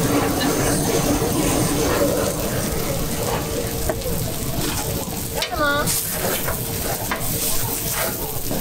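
Shredded potato rösti frying on a hot griddle: a steady sizzle, with the scrape and stir of a spatula.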